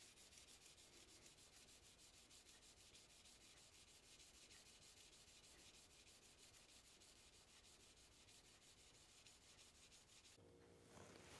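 Faint, quick, even back-and-forth rubbing of a hand-held abrasive along a forged leaf-spring steel chisel clamped in a bench vise, sharpening and flattening it. The strokes stop about a second before the end.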